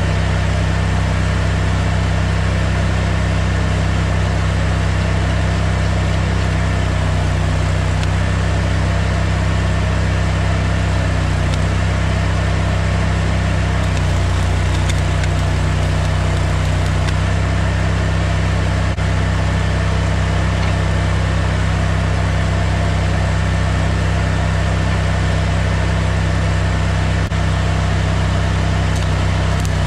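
Stick-welding machine running with a steady low hum and a faint regular throb, no arc struck.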